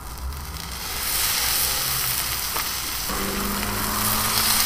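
Bacon strips sizzling as they are laid onto a very hot porcelain-coated cast iron griddle plate. The sizzle grows louder about a second in, then holds steady.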